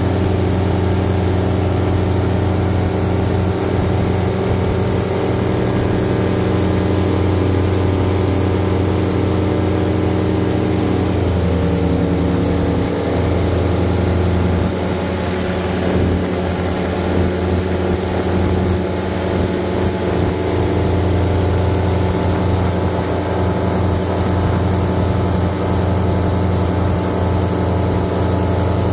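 Airboat's engine and propeller running steadily at cruising speed, a loud constant drone; the engine note shifts slightly lower about eleven seconds in as the throttle changes.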